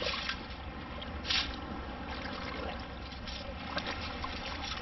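Water splashing and draining out of a perforated titanium sand scoop as it is lifted from shallow sea water and shaken, with one short, louder splash about a second in.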